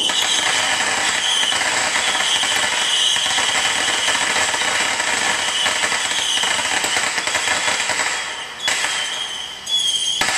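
Fireworks crackling in a dense, rapid stream with a high whistle coming and going over it. About eight seconds in the crackle dies down and a couple of sharp pops follow.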